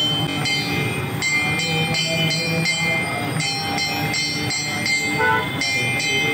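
Temple bells rung rapidly and steadily for aarti, about four strikes a second, with a sustained metallic ringing.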